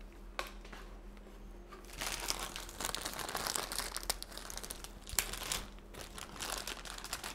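Silver anti-static shielding bag crinkling and crackling as it is handled and opened by hand to pull out a graphics card. It starts softly and becomes a dense crinkling about two seconds in.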